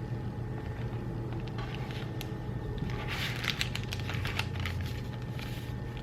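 Plastic packaging crinkling and rustling as it is handled, with a flurry of small clicks and crackles about three seconds in, over a steady low hum.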